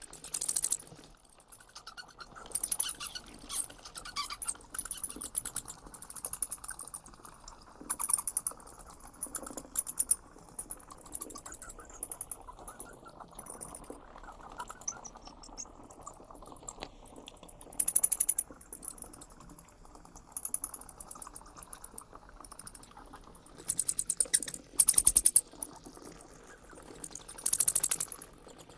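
Bat calls: repeated bursts of rapid, high-pitched clicking and chittering, a new burst every second or two with short pauses between.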